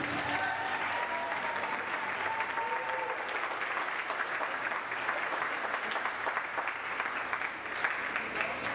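Audience applauding as the music ends, with a voice or two calling out in the first few seconds; the clapping thins into scattered claps near the end.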